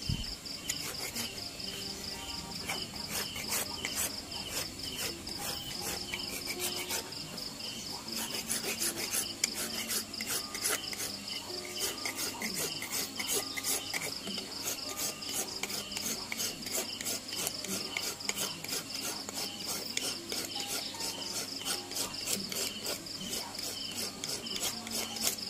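Repeated short scraping strokes of a hand carving tool on wood, growing quicker and denser about a third of the way in. Insects chirp steadily in quick pulses throughout.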